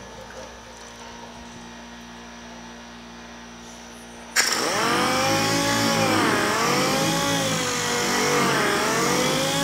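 Dual-action sander wet-sanding the clear coat on a painted door. For the first four seconds there is only a quiet, steady low hum. Then the sander starts abruptly and runs with its pitch dipping and rising, slowing where the clear coat is sanded flat and speeding up over orange peel.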